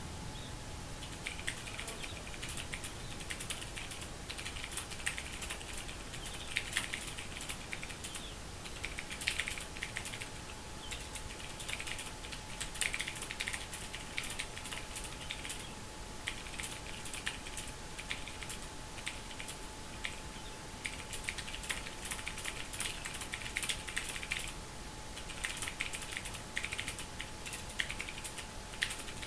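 Fast typing on a Ducky Mecha mechanical keyboard: rapid runs of key clicks in bursts of a few seconds, broken by brief pauses between words.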